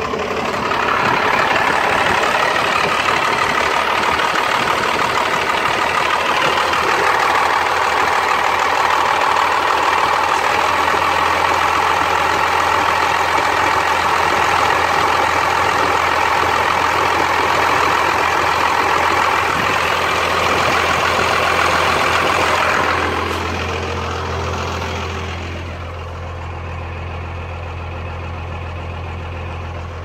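Cummins 12-valve inline-six diesel running with a rough, missing idle, which the owner suspects may come from an air leak in the fuel supply. It is loud and steady for most of the time, then drops to a quieter steady run about three-quarters of the way through.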